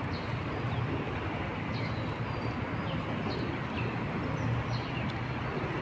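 A steady outdoor rumble of background noise. Over it, small birds give short, high chirps that slide downward, repeating every second or so.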